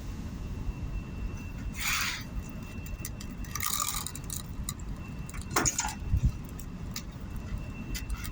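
Scattered clinks and a few knocks from work with metal parts, with two short scrapes, over a steady low rumble.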